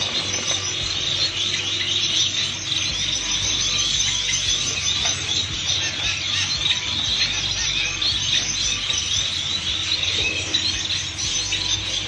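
Many caged finches chirping and calling together, a dense, steady chatter of short high chirps.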